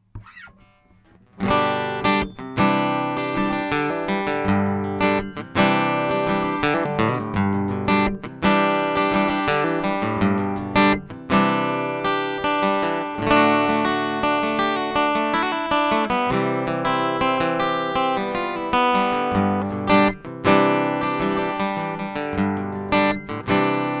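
AMI JM-AGE slope-shoulder dreadnought acoustic-electric guitar, plugged in through its CE304T pickup system, strummed in chords. The playing starts about a second and a half in.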